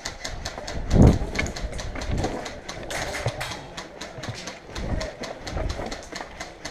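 Irregular sharp clicks of airsoft guns firing around the field, with a few dull low thumps, the loudest about a second in.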